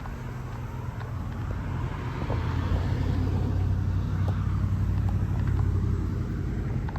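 Vintage Carrier International Series air conditioner condensing unit running: a steady low compressor hum with fan noise, getting louder about two seconds in.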